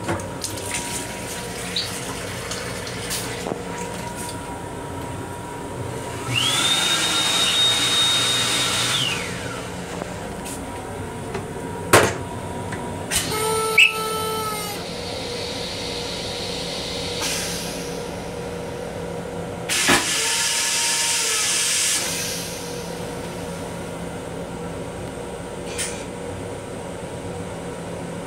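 An M7 railcar sink unit's hand dryer blows for about three seconds, its high whine rising and then holding. Then the M7 toilet flushes: a sharp click, a brief whistle, and a second hiss a few seconds later. Under it all runs the steady hum of the moving railcar.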